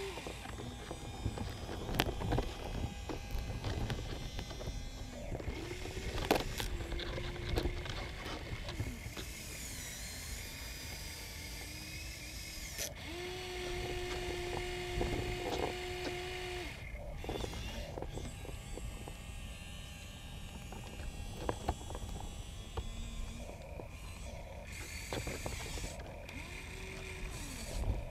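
Huina RC excavators' electric motors whining in short steady tones that switch on and off as the arms and buckets move. Scattered clicks and scrapes come from the buckets working the dirt.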